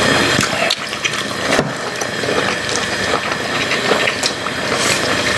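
Mealtime table sounds: a steady rushing noise with scattered clicks of spoons and chopsticks against bowls.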